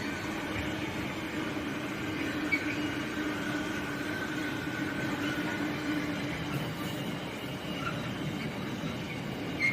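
A train at the station, a steady hum with a constant whine held throughout and one brief click about two and a half seconds in.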